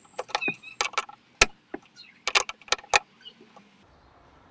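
Ratchet wrench and socket clicking and clinking on the bolt of a luggage tie-down bracket in a car's boot floor as it is tightened. A run of sharp, irregular clicks stops about three seconds in.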